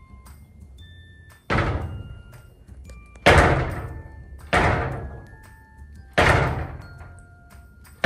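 A loose glass-paneled kitchen door banging and rattling as a dog pushes against it with its head: four bangs about every one and a half seconds, each dying away over about a second. The lower part of the door is not fixed and swings freely.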